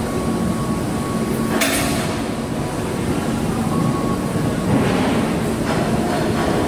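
Steady machinery hum and noise of a large fabrication shop, with a sharp metallic clank about a second and a half in and a softer knock near the five-second mark.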